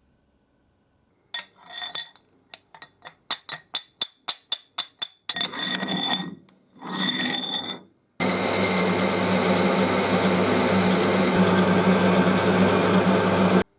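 Workshop tool sounds: a short burst, then a run of quick sharp clicks, then two brief bursts. About eight seconds in, an electric power tool starts and runs steadily with a low hum, then cuts off abruptly just before the end.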